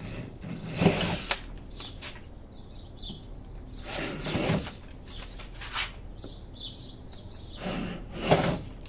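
Small birds chirping in the background, broken by three short noisy bursts, each under a second: about a second in, around four seconds, and near the end.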